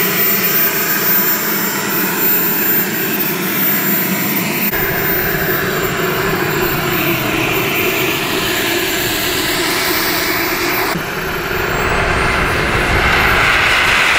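Kingtech K85 G4 model jet turbine running with a steady high whine; near the end the whine climbs in pitch and the sound grows louder as the turbine spools up.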